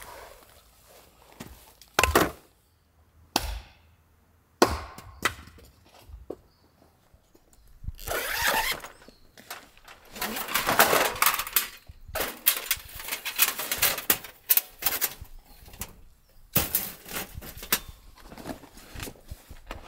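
A few sharp, separate knocks in the first seconds, then a fabric carry bag rustling as a folding stainless-steel fire pit is pulled out, followed by quick, repeated metallic clinking and clattering as its thin steel panels are unfolded and fitted together.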